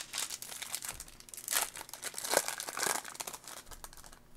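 Foil wrapper of a 2020 Topps Chrome baseball card pack crinkling and tearing as it is ripped open by hand, in irregular crackly bursts.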